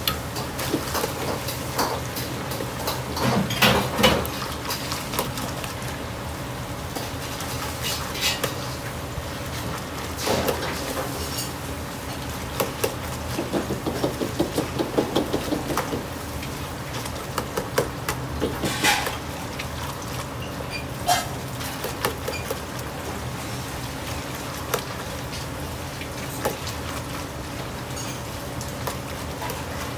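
Metal ladle clanking and scraping against a 50 cm iron wok as pork slices are stirred through hot oil, over a steady kitchen hum. The loudest knocks come a few seconds in, with a quick run of clanks about halfway through and single sharp knocks later.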